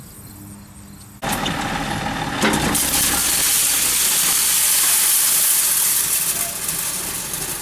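Tractor engine running steadily, cutting in suddenly about a second in and getting louder a second later, with a strong hiss over it.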